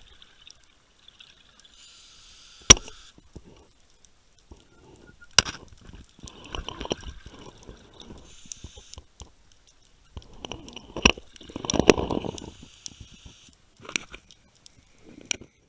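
Scuba diver breathing through a regulator underwater: short hissing inhalations alternating with longer bursts of bubbling exhaled air, with a few sharp clicks.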